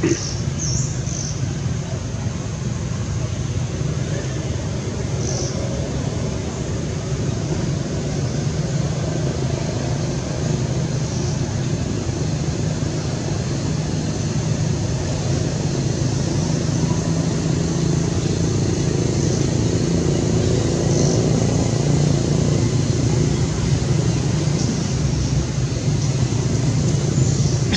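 Steady low hum of a running motor, unchanging throughout.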